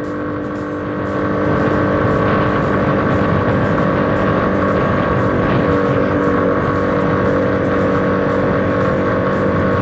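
1979 Honda CT90's small single-cylinder four-stroke engine running at a steady pace on the move. It gets louder about a second in, then holds even.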